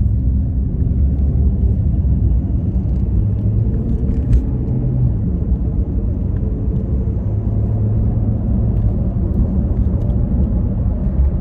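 Steady low rumble of a car's engine and road noise heard from inside the moving cabin, with a brief click about four seconds in.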